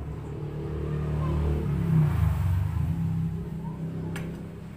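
A motor vehicle's engine passing by: it grows louder to a peak about two seconds in, then fades away.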